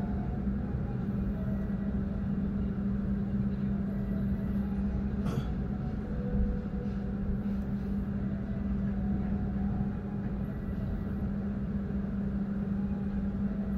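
Inside a passenger train carriage as it rolls slowly into a station: a low rumble from the running gear under a steady low-pitched hum, with a single knock about five seconds in.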